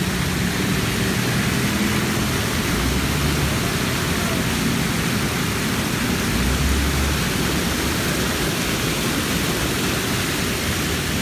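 Jets of a large fountain spraying and splashing back into the basin: a steady, even rush of falling water.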